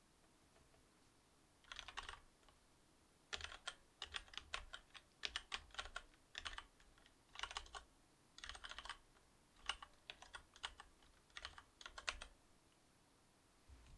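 Typing on a Cherry MX Board 8.0 mechanical keyboard with Cherry MX Silver linear switches: quick runs of keystroke clicks with short pauses between them, starting about two seconds in and stopping a little before the end.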